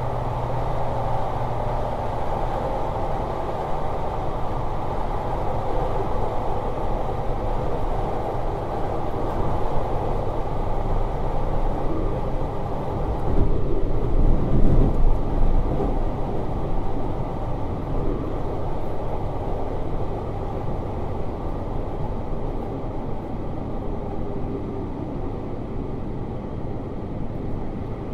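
JR Hokkaido 721 series 3000 subseries electric train running at speed, heard from inside the car: a steady rumble of wheels on rail and running gear. It swells louder for a couple of seconds about halfway through, then eases slightly.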